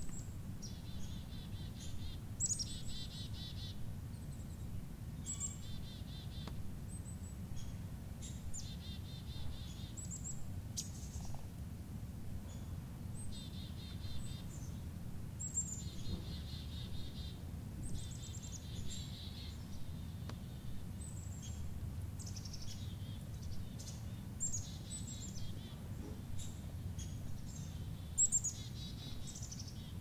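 Small songbird calling over and over: each call is a sharp high note followed by a quick buzzy run, about every two to three seconds, over a steady low outdoor rumble.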